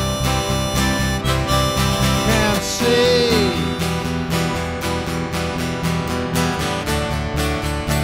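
Instrumental song intro: acoustic guitar strummed in a steady rhythm under a harmonica melody. About three seconds in, one note bends downward.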